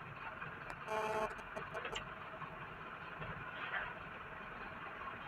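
A car running along a cobblestone street, heard from inside the cabin as a steady low rumble of engine and tyres. About a second in comes a short, flat beep, followed by a few light clicks.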